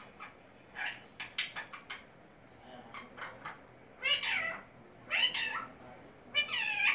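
Pet talking parrot giving three meow-like calls, each falling in pitch, in the second half, after a run of quick sharp clicks.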